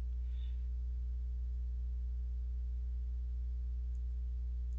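Steady low electrical hum with its overtones, like mains hum picked up by the recording setup, and a few very faint mouse clicks.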